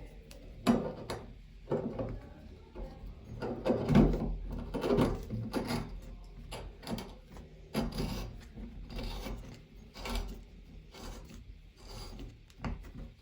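A new shower faucet cartridge being screwed by hand into the valve in the wall: irregular scraping and rubbing with scattered small knocks and clicks.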